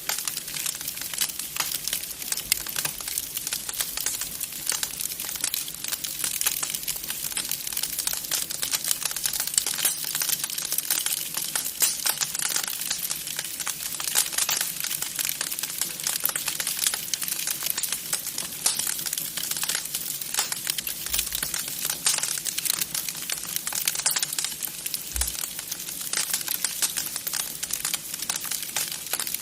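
Wood fire crackling in a fireplace: a steady stream of small pops and snaps.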